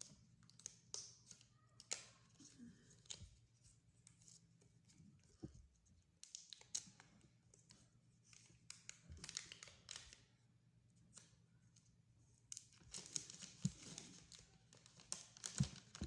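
Plastic packaging crinkling and tearing during unboxing, with scattered small clicks and taps of handling; faint, and busier in the last few seconds.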